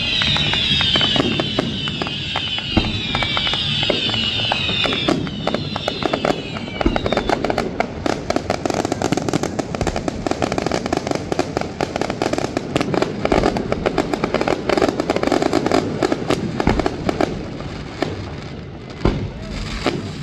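Fireworks display: a rapid run of bangs and crackles throughout, with many overlapping high whistles falling in pitch during the first several seconds.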